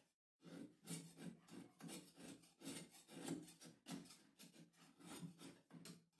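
Faint, gritty strokes of a kitchen knife cutting a block of rapadura (hard raw cane sugar) into small crumbs on a cutting board, about two to three strokes a second. They begin about half a second in.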